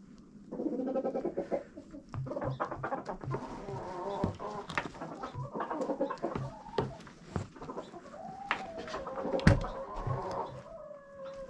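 Chickens clucking, with drawn-out, gliding calls in the second half, among scattered knocks and scrapes; the loudest sound is a sharp knock about nine and a half seconds in.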